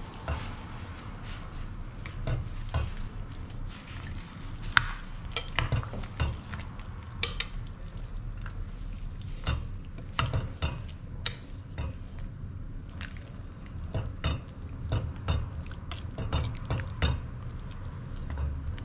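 Spatula stirring chili leaves into chicken soup in an amber glass pot, with irregular clinks and scrapes of the utensil against the glass.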